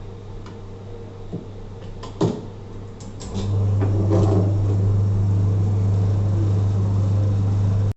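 A few clicks and knocks, then a workshop machine starts about three and a half seconds in and runs with a loud, steady electric hum until it cuts off suddenly at the end.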